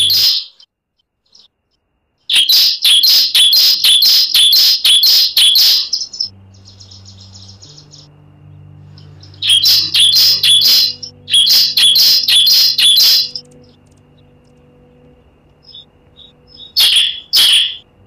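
Bar-winged prinia (ciblek) singing: loud runs of rapid, sharp high chirps at about four notes a second, each run lasting a few seconds with pauses between. A soft, steady low music pad sits underneath from about a third of the way in.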